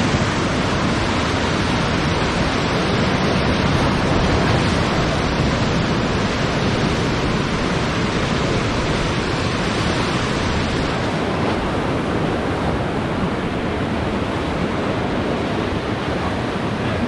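Whitewater river rapids rushing around a raft: a loud, steady rush of churning water.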